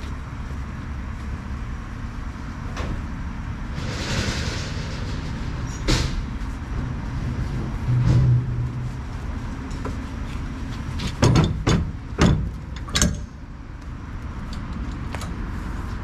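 A vehicle engine idling steadily, with one sharp knock about six seconds in and four sharp knocks in quick succession later on.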